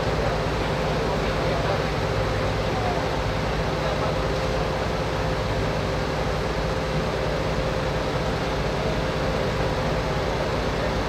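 A large engine running steadily, with a constant hum and faint voices in the background.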